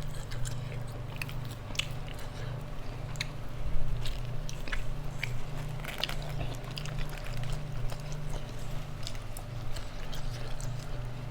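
A person chewing and biting food close to the microphone: irregular wet mouth clicks and small crunches.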